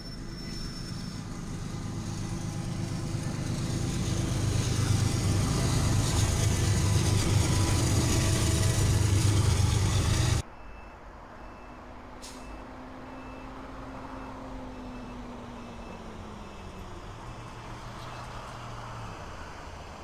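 A heavy rumble grows steadily louder for about ten seconds, then cuts off abruptly. After that, a quieter steady low hum continues with a short high beep repeating at an even pace, about one and a half times a second.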